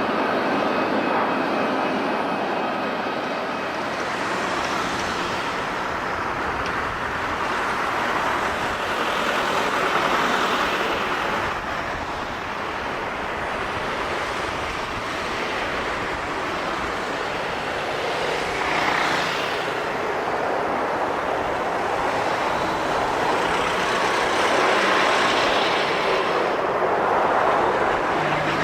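Jet airliner engines running, a steady loud rush that swells and eases slowly, with a faint thin whine in the first few seconds.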